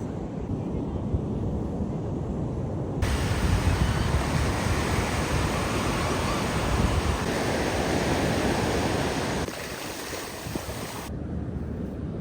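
A low steady rumble of car road noise cuts abruptly, about three seconds in, to a louder rushing of ocean surf and wind on the microphone. Near the end it cuts back to the low rumble.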